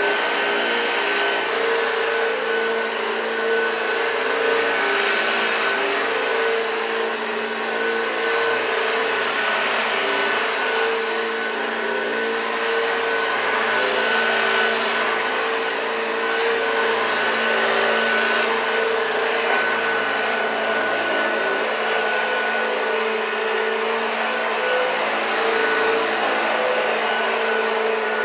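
1986 Hoover Junior U1206 upright vacuum cleaner running steadily: a constant motor whine and airflow noise with a high steady tone over it.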